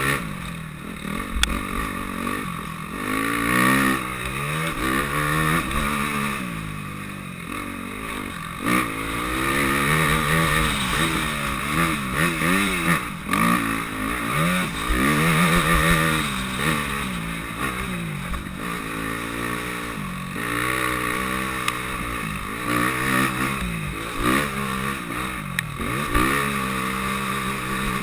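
Dirt bike engine under way on a trail, its revs rising and falling over and over as the throttle is opened and closed through the gears.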